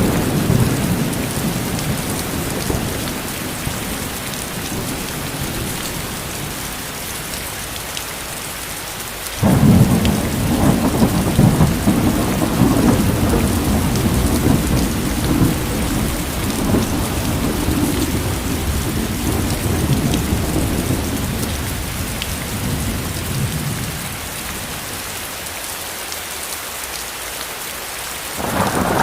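Steady heavy rain with rolling thunder. A low rumble dies away over the first third, a new one breaks in suddenly and rolls on for a long stretch before fading, and another starts near the end.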